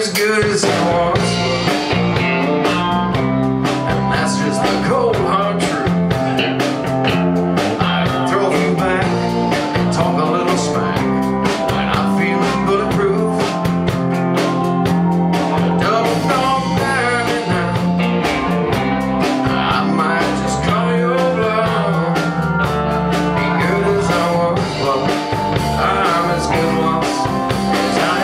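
Live band playing a country-rock number on electric guitars, an acoustic guitar and drums, with a steady drum beat.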